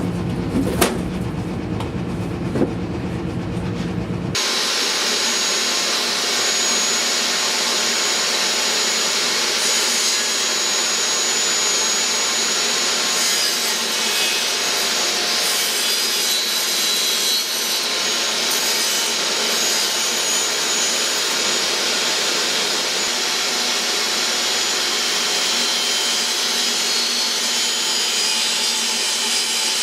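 A power tool running steadily on wood, an even noise that starts abruptly about four seconds in and holds unchanged after a few clicks and a low hum.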